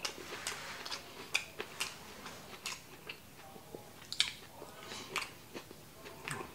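Close-up chewing of a mouthful of kimchi fried rice, with many irregular wet clicks and mouth smacks.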